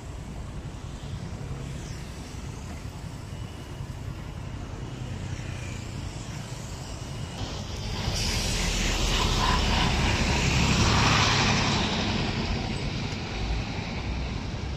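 Road traffic noise: a steady rumble of vehicles that swells louder from about eight seconds in and eases off near the end.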